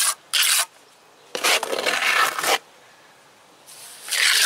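Trowel scraping wet stucco onto a stucco wall in three strokes: a short one at the start, a longer one of about a second, and another near the end.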